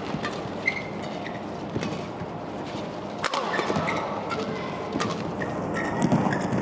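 Badminton doubles rally: rackets strike the shuttlecock with sharp cracks every second or two, and court shoes squeak briefly on the court mat, over steady arena crowd noise.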